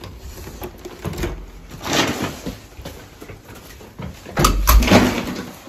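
A door being opened and shut, then a paper bag full of empty cans and plastic bottles rustling and rattling as it is carried. The loudest part is a thump with a clatter a little over four seconds in.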